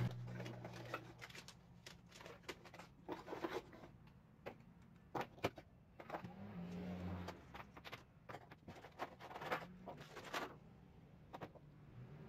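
A cardboard box being opened and a small submersible pump, its cord and packaging handled on a wooden table: scattered light clicks, taps and rustles.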